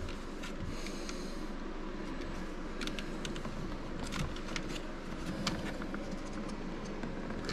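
Faint clicks and rustles of plastic electrical connectors being worked loose from a car door's power-window switch panel, scattered over a steady background hum.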